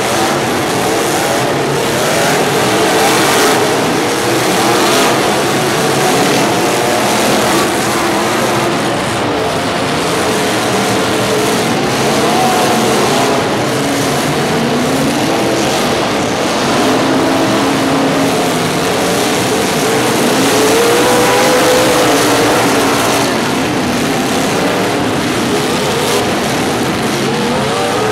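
Several vehicle engines running and revving at once, their pitches rising and falling over a constant noisy din.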